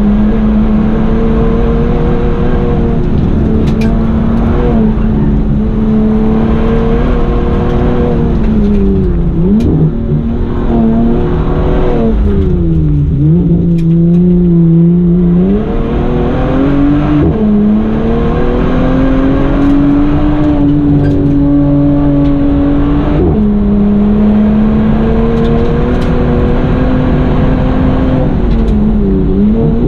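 Bentley Continental GT's engine under hard racing load, its pitch repeatedly climbing and dropping through gear changes and lifts for corners, dipping deepest about thirteen seconds in as the car slows for a tight bend, then pulling back up.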